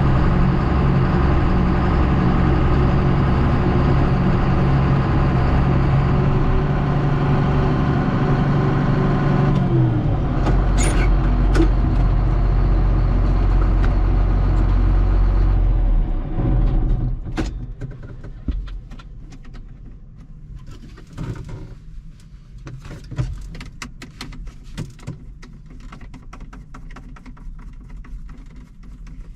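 Heavy farm machinery engine running steadily. It drops in pitch about a third of the way in and dies away about halfway through, leaving scattered clicks and rattles.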